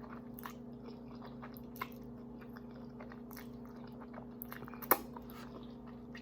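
Close-miked chewing: wet mouth clicks and smacks while eating a mouthful, with one sharper click about five seconds in, over a steady low hum.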